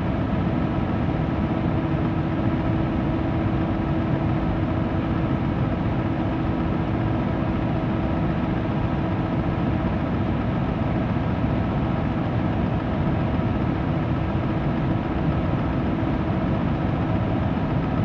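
Electric fan running steadily: a deep, even rush of air with a faint, steady motor hum at a few fixed pitches, used as brown noise for masking.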